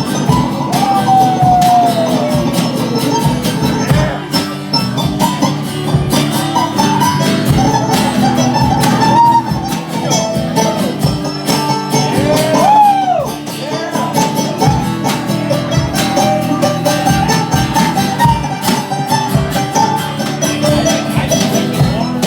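Live rock band playing an instrumental break: guitars and drums with a steady beat, and a lead line that slides and bends in pitch.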